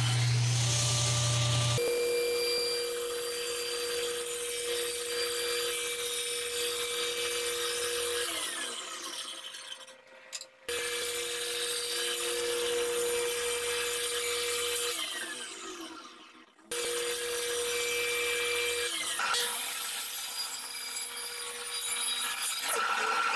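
Power saw cutting wood in several short runs, each starting abruptly and winding down with a falling whine. Near the end, a miter saw cuts through a board.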